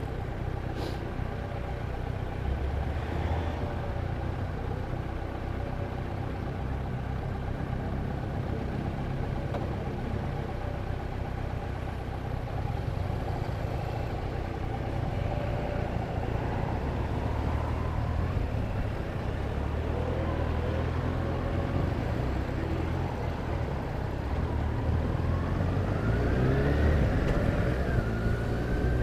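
Motor vehicle engine and road noise running steadily, with the engine pitch rising as it accelerates about four seconds before the end.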